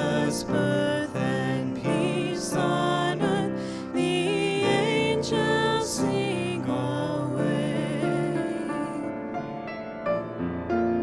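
A man singing with vibrato to grand piano accompaniment; the voice stops about nine seconds in and the piano plays on alone.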